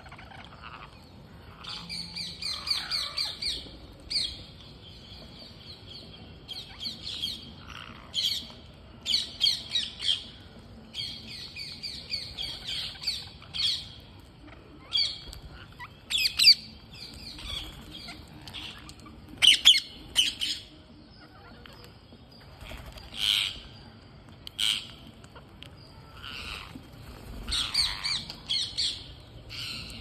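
A flock of rose-ringed parakeets squawking: harsh calls from several birds, repeated in short bouts every second or two.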